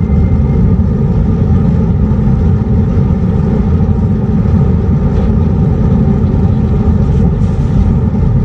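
Hyundai IONIQ 5's acoustic vehicle alerting system (VESS) playing its synthetic warning sound: several steady held tones over a loud low rumble, heard from inside the car's front trunk.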